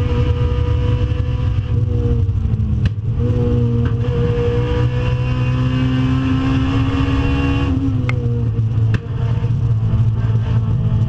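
Honda Civic Si's K20 four-cylinder, fitted with performance cams, running hard on a hot lap, heard from inside the stripped cabin. The engine note steps down and climbs back up several times, with a few sharp clicks.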